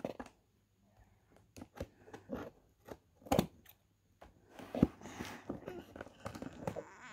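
Scissors cutting and scraping through packing tape on the seam of a cardboard box: scattered small clicks and scratches, a sharper click about three and a half seconds in, and a longer stretch of scraping near the end.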